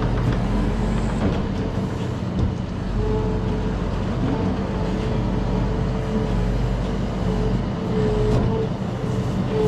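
Compact track loader's diesel engine running steadily under load while its 4-way clamshell bucket scoops sawdust. A steady whine comes in about three seconds in, drops away, and returns near the end.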